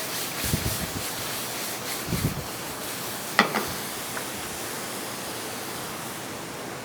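Chestnut mushrooms frying in a pan, a steady sizzle, with a sharp clink about three and a half seconds in and a couple of low thuds before it.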